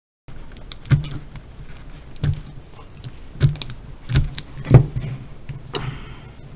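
Plastic knocks and clicks from a Rubik's Cube being handled as its stickers are picked and peeled off: about five sharper knocks among lighter ticks, with a short scratchy sound near the end.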